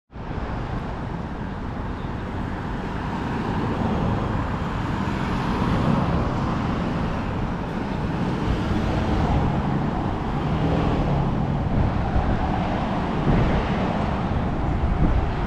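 Street traffic: cars and buses driving past on a city road, a steady rush of tyre and engine noise.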